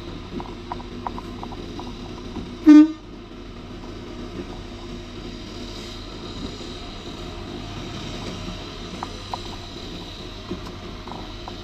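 Steady vehicle rumble with one short, loud horn toot about three seconds in, and a few faint clicks.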